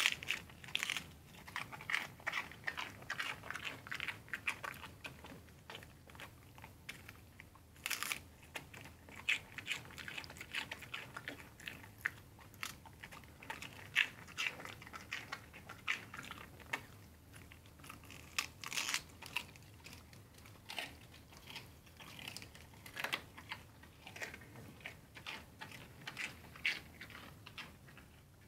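Pembroke Welsh Corgi chewing lettuce leaves: a long run of irregular, crisp crunches.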